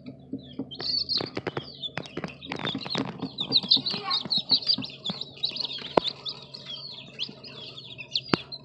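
A brood of young chicks peeping: many short, high cheeps that slide downward in pitch, thickest from about three and a half seconds in. Sharp clicks and rustles come in the first three seconds, over a faint steady low hum.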